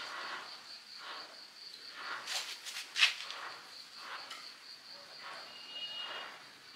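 Crickets chirping in a steady high trill, with scattered clicks and knocks over it. The sharpest knock comes about three seconds in.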